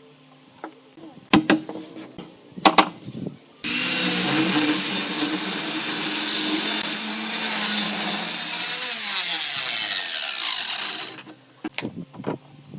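Two knocks of wood being handled, then an electric power tool switched on abruptly and run at full speed for about seven seconds with a high whine, its pitch sliding down as it spins down and stops, followed by a few light taps.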